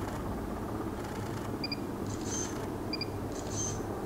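A stills camera's short autofocus double beep followed by a brief shutter release, twice in a row, over a steady low background hum.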